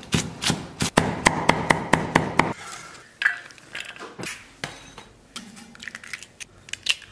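Cleaver chopping green peppers on a wooden stump chopping block, fast even strikes about five a second for the first two and a half seconds. Then come scattered lighter knocks and clinks as the diced pepper goes into a steel bowl and eggs are cracked into a ceramic bowl.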